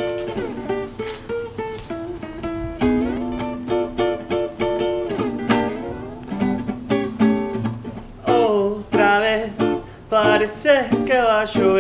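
Small acoustic guitar played by fingerpicking a melodic introduction of separate plucked notes. A man's voice comes in singing, with vibrato, about eight seconds in.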